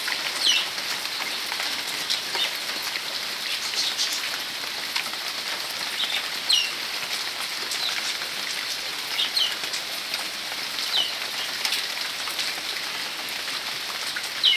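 Steady hiss of rain falling, with short falling bird chirps now and then.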